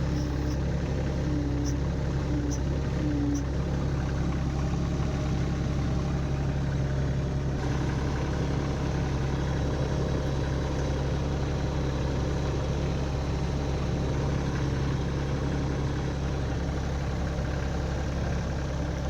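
Kioti subcompact tractor's diesel engine idling steadily, with a slight change in tone about seven and a half seconds in.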